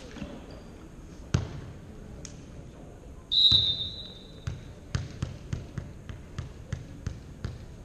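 A referee's whistle blows one short, high, steady note about three seconds in, the signal to serve. Then a volleyball is bounced on the gym's hardwood floor, about three bounces a second for some three seconds, as the server gets ready. A single ball thud comes earlier, about a second in.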